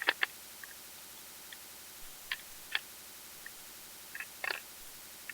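Scattered sharp clicks and knocks of a plastic portable hard-drive enclosure being handled as a stuck 2.5-inch drive is pulled at inside it: two right at the start, two more a little over two seconds in, and a small cluster near the end.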